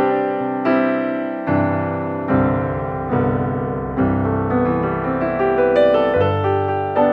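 Background piano music with a steady pulse of struck, decaying chords.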